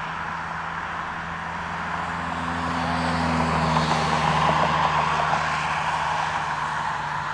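Jet engines of a Spirit Airlines Airbus narrowbody departing, a rushing jet noise that swells to a peak about four to five seconds in and then eases, over a steady low hum.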